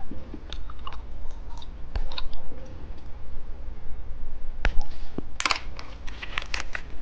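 Candy packaging being handled: scattered sharp plastic clicks and crinkles, with a dense flurry of them about five seconds in.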